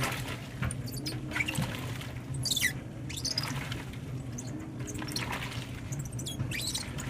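2012 LG top-load washer agitating a heavy-duty load of towels and shoes: water sloshing over a steady low hum, with rubber shoes squeaking against the wash basket every second or so.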